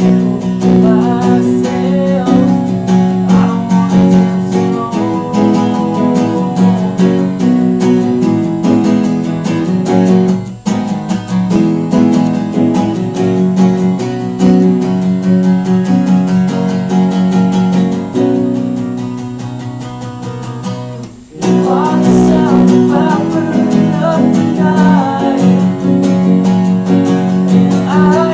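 A live band song: strummed guitar with singing. The music breaks briefly about ten seconds in, then eases into a quieter passage that drops out about 21 seconds in before the full band comes back.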